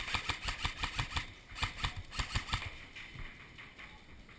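Airsoft gun firing in two rapid strings of sharp shots, each about a second long with a short pause between.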